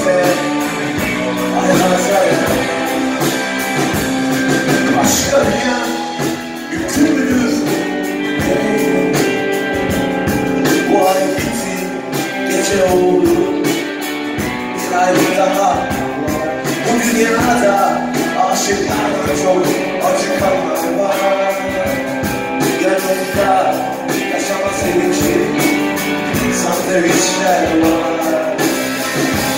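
Live rock band playing electric guitars, bass guitar and drums, with a male lead vocal, heard from the audience.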